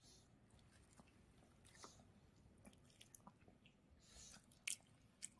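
Faint, soft chewing and crunching by a small dog working on a treat, scattered small clicks, with two sharper clicks near the end.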